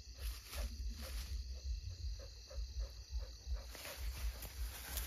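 An animal making short, evenly repeated sounds, about three a second, over a steady low rumble.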